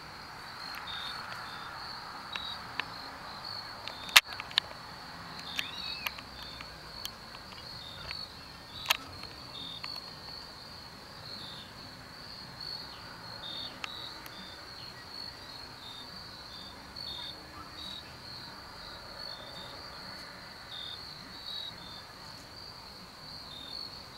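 A steady chorus of insects trilling high and shrill, with shorter chirps repeating about once a second just below it. A few sharp clicks break in; the loudest comes about four seconds in and another near nine seconds.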